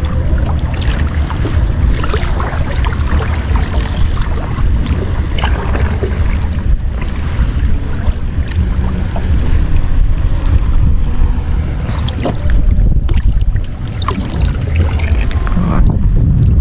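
Wind buffeting the microphone as a steady low rumble, over seawater lapping and sloshing against a small boat, with scattered small knocks and splashes. Near the end the water splashes more as a hand moves through it.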